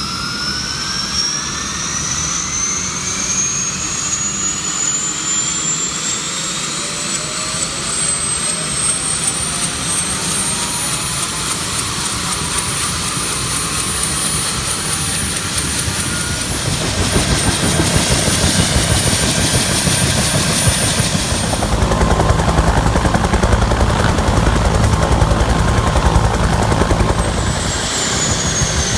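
UH-1H Huey helicopter's Lycoming T53 turbine and two-blade main rotor: a high turbine whine climbing steadily in pitch over the first ten seconds, then holding. The rotor's rhythmic beat grows louder from about halfway in, and the whine drops in pitch near the end.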